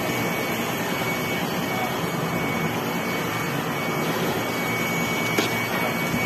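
Steady rushing noise with a faint thin high whine.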